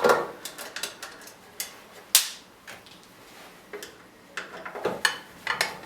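Irregular clicks and metal clinks of a screwdriver and screws as the screws holding the back cover are taken out, with one sharper knock about two seconds in.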